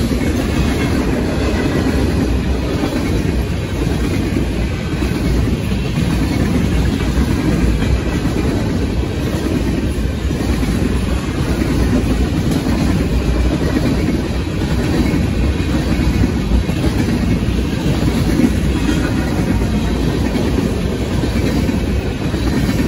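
Union Pacific manifest freight train cars rolling steadily past a grade crossing: a loud, continuous noise of steel wheels on the rails.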